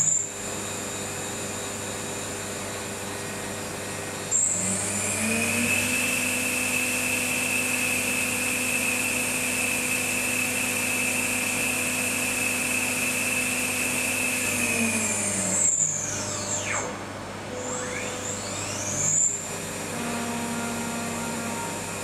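NORTE VS 500 Speed vertical machining center running, a high machine whine over a steady mechanical hiss. About four seconds in the whine rises in pitch and holds steady. Around fifteen seconds it winds down, and it rises again a few seconds later.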